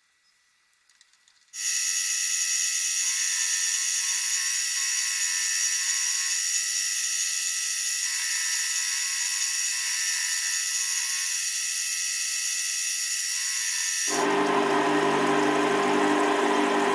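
Chinese benchtop metal lathe starting up about a second and a half in and running with a steady high-pitched whine, its spindle turning an end mill. Near the end a lower steady hum joins in and the sound gets a little louder.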